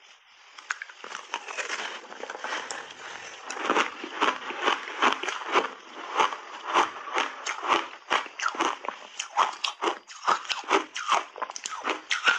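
Crunchy frozen ice being bitten and chewed into a close clip-on microphone: crisp crunches come several times a second, growing denser and louder from about three seconds in.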